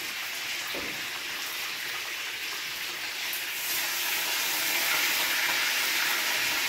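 Chicken pieces sizzling in hot oil in a frying pan, a steady hiss that grows louder a little over halfway through.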